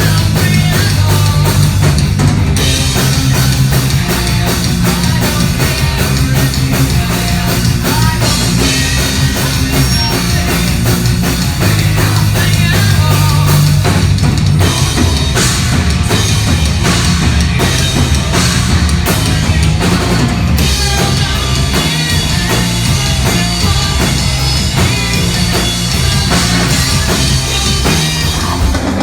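Live heavy rock band playing loud, with pounding drums, bass drum and distorted guitars, an instrumental passage without vocals.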